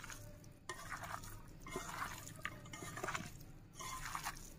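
Wet squelching and squishing as a bare hand kneads raw beef pieces with onions and spice paste in a nonstick frying pan, marinating the meat, in uneven handfuls with short sticky smacks.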